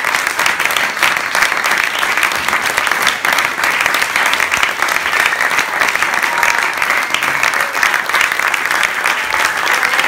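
Audience applauding steadily, many hands clapping together.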